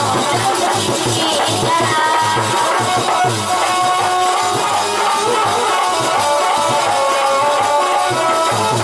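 Folk music on harmonium: a melody of held reedy notes over steady rhythmic percussion. A woman's sung phrase fades out about a second in, and the harmonium carries the interlude.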